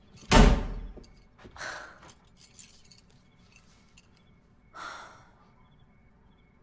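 A loud thump just after the start, then two breathy sighs, one about a second later and one near the five-second mark.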